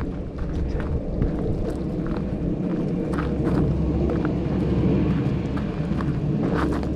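Low, steady rumble of wind buffeting the microphone, with irregular crunching footsteps on a gravel path.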